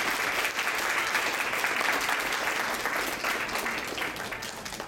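Audience applauding at the end of a dance performance, dying down near the end.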